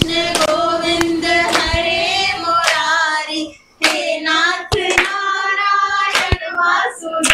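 A group of voices singing a Krishna bhajan while hands clap along in time, with a short break in the singing a little before halfway.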